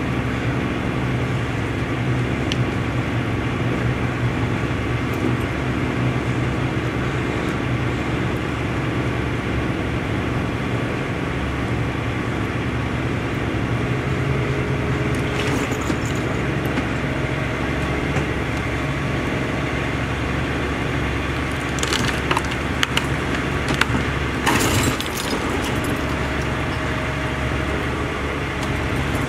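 A truck-mounted crane's engine running steadily while its grab breaks up a derelict boat, with bursts of cracking and crunching about halfway through and again several times in the last third.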